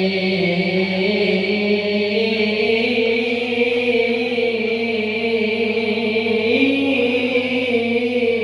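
A young male qari reciting the Qur'an in melodic style, drawing out one long held note that slowly climbs in pitch with small ornamental turns.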